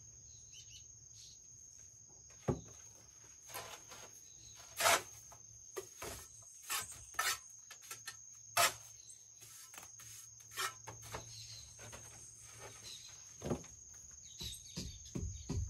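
Bricklaying work: irregular knocks, taps and scrapes of a trowel, mortar and bricks, the loudest about five seconds in and again past eight seconds. A steady high insect trill runs underneath.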